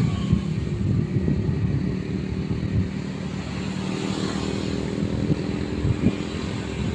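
Wacker Neuson 6003 mini excavator's diesel engine running steadily under hydraulic load as the machine digs soil and slews round, with a few short knocks near the end.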